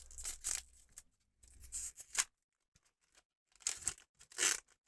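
Crinkly trading-card pack packaging being handled and torn in several short rustling bursts.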